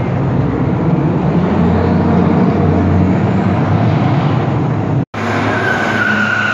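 A car's engine held at high revs as the car slides around with its rear tyres spinning. After a brief dropout about five seconds in, a steady high tyre squeal sounds over the engine.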